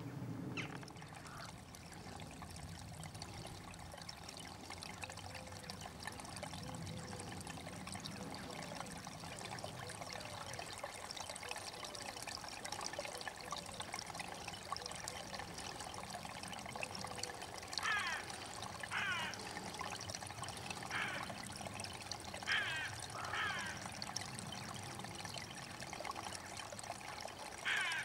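Steady trickle of running water, joined about two-thirds of the way in by a string of short bird calls.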